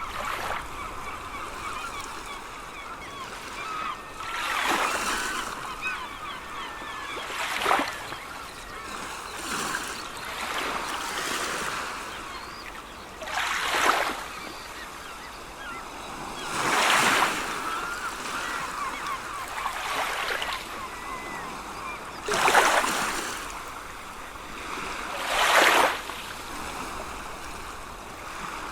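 Sea waves breaking on the shore, the surf swelling and washing in every few seconds, with seagulls calling, most busily near the start.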